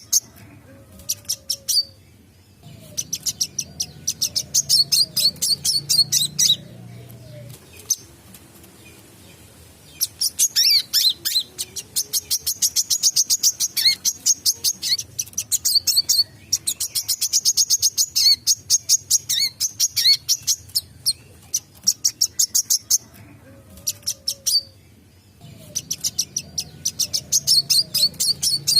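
A wiceh (sunbird) singing fast, in long runs of rapid, sharp, high chirps, many to the second. Each run lasts several seconds and the runs are broken by short pauses.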